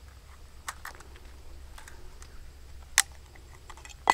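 A few small plastic clicks from a compact folding drone being handled and readied, with one sharp click about three seconds in.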